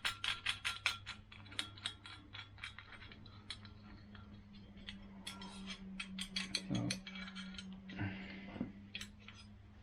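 Quick runs of light metallic clicks from a nut being worked onto a bolt on a rigging-wire fitting: dense at the start and again around the middle, sparser in between. A low steady hum runs underneath.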